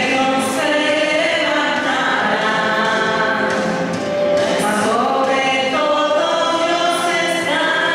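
A small group of women singing a Spanish Christian worship song together into microphones, holding long sung notes.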